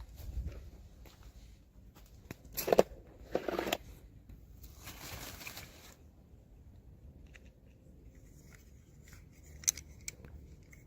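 Toy packaging being opened by hand, with a couple of short crisp cutting or crinkling strokes, then a longer tearing sound, and scattered small ticks with a sharp click near the end.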